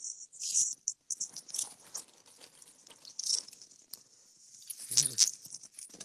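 Scattered faint clicks and crackles of small objects being handled close to a phone microphone, with a brief murmur about five seconds in.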